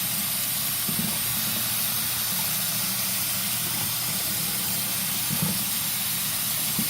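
Water running steadily from a faucet, a continuous hiss, with a few soft knocks about a second in, past five seconds and near the end.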